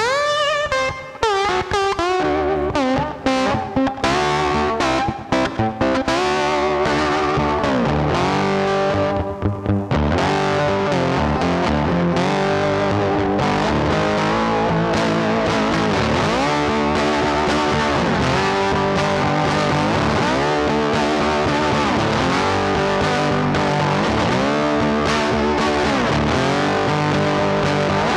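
Blues music with distorted electric guitar, the notes bending in pitch.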